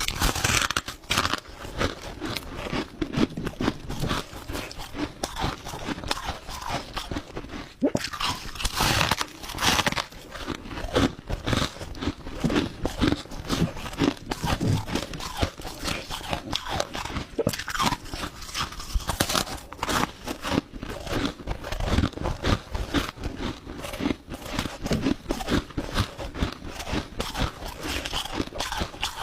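Crushed ice being bitten and chewed close to the microphone: a dense, continuous crunching of many quick sharp cracks.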